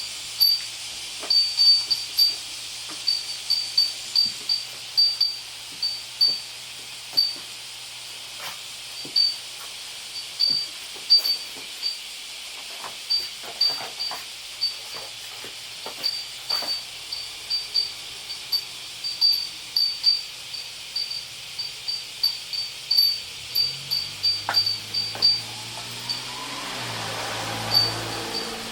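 Cicadas singing, heard from inside a house: a steady high buzzing hiss with a fast, uneven run of short sharp chirps over it. A low hum comes in near the end.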